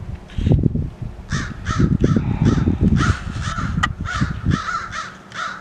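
Several crows cawing back and forth in a squabble, about ten harsh caws in quick succession. A heavy low rumble runs under the first four and a half seconds, then drops away.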